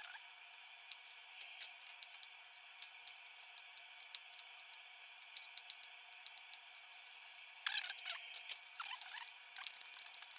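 Chef's knife slicing carrots on a wooden cutting board, sped up in fast-forward: a quick, irregular run of sharp ticks from the blade striking the board over a thin hiss, with no low end.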